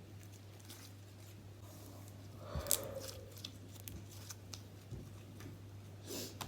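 Slime being handled close to the microphone: scattered soft squishes and small clicks, loudest about two and a half seconds in, over a steady low hum.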